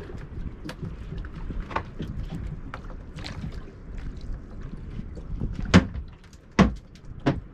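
Wind and water noise around a small open fishing boat, with light clicks as a rod is reeled in. Near the end come three sharp knocks as a hooked mackerel on a feather rig is swung aboard against the boat.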